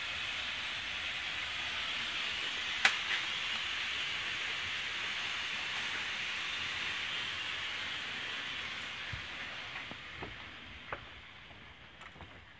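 Steady cooking hiss over a wood and charcoal fire, with one sharp crackle about three seconds in and a few fainter crackles later. The hiss fades away over the last few seconds.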